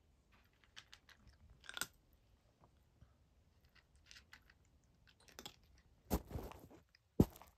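Cat crunching dry kibble from a plastic dish, in irregular bites. Six seconds in there is a louder rustling stretch, then a single sharp knock.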